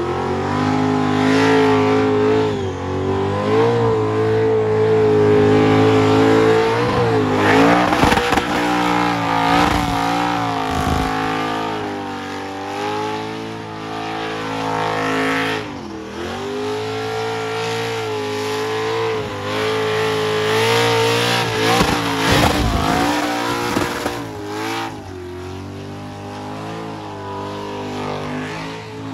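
LS-swapped V8 burnout car held at high revs while its rear tyres spin in a burnout. The revs drop sharply and climb back several times, around 8, 16 and 22 seconds in.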